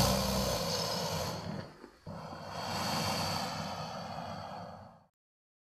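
Gorgonopsid creature vocal sound effect: the tail of a roar fading out, then about two seconds in a long breathy exhale lasting about three seconds that cuts off into silence.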